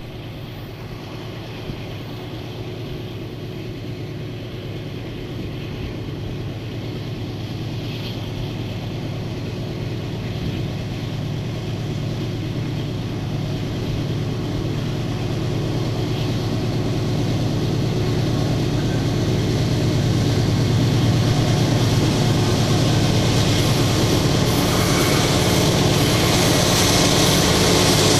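A consist of three diesel-electric locomotives hauling an iron-ore train, engines running with a steady drone that grows steadily louder as the train approaches, with a rising hiss near the end.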